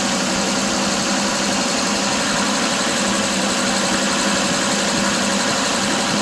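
Old 6-volt Chevrolet engine idling steadily, with the headlights and a turn signal switched on loading its charging system.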